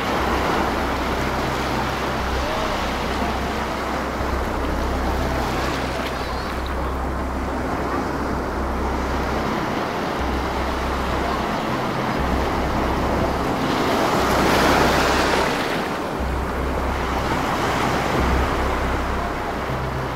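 Ocean surf breaking and washing up the sand, a steady hiss of water, with one wave surging loudest about fifteen seconds in.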